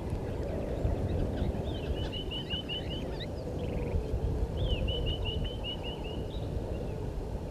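A wild bird calling in two runs of quick, evenly spaced chirps, over a steady low background rumble.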